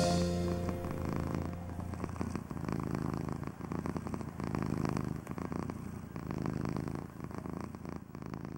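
A domestic cat purring close up, a fast steady pulsing that swells and fades every couple of seconds. The tail of a music track fades out in the first second.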